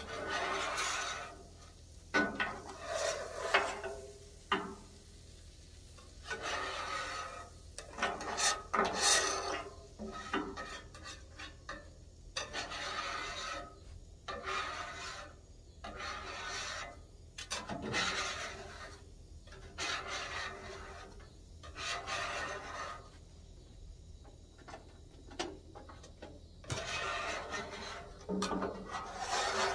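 Metal scraper scraping the steel top of a Blackstone griddle in a run of rasping strokes with short pauses between them, clearing cooked-on residue off the cooking surface.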